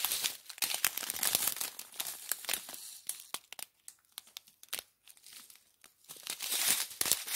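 Small plastic bags of diamond-painting drills crinkling and crackling as they are handled and flipped through, with a thinner patch of crackles in the middle.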